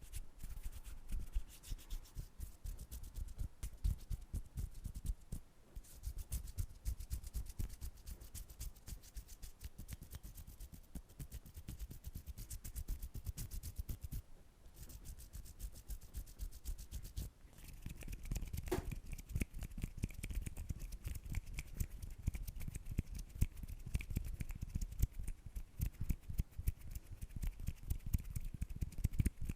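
Close-miked ASMR hand sounds: rapid crackly rubbing and scratching made of many small clicks a second, with two brief lulls about halfway through.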